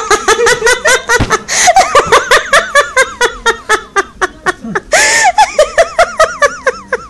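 Loud, hearty laughter: a fast, steady run of short 'ha-ha' pulses, broken by two breathy bursts about one and a half and five seconds in.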